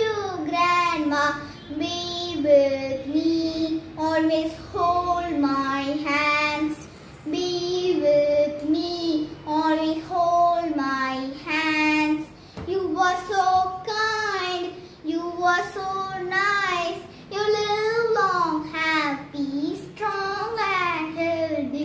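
A young girl singing solo and unaccompanied, in short sung phrases with brief pauses between them.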